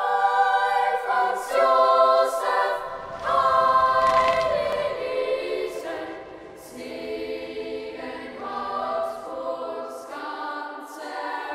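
Choir singing slow, held chords, the harmony shifting every second or so.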